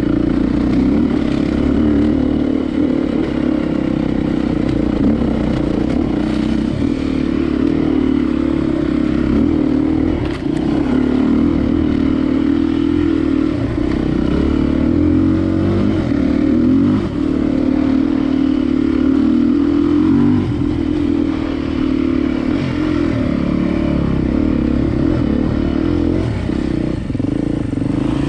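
Veteran vehicle's engine running steadily under way, a loud constant drone that rises and falls a little in pitch.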